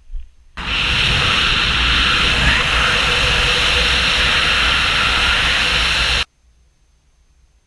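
Loud, steady rush of wind over the microphone of a camera carried by a paraglider pilot in flight. It cuts in sharply just after the start and cuts off abruptly about six seconds in.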